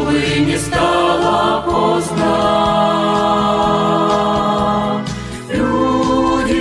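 Choir singing a slow Christian song, holding one long chord through the middle before moving on.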